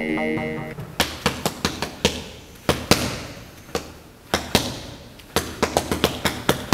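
Gloved boxing punches landing, singly and in quick irregular combinations, each a sharp smack with a short echo. Music fades out in the first second.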